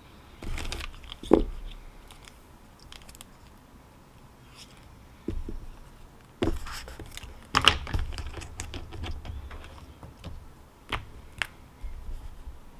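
Desk handling sounds: paper rustling and scraping, with several sharp clicks and knocks, the loudest about a second and a half in and again near the middle.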